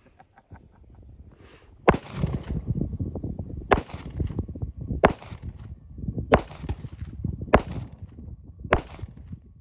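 Pistol fired in slow, single aimed shots: six sharp reports, the first about two seconds in and the rest roughly every second and a quarter.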